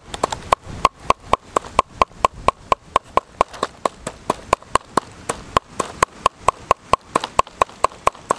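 Large knife chopping fish on a round wooden chopping board: steady, even strokes about three a second, each a sharp knock with a brief ring.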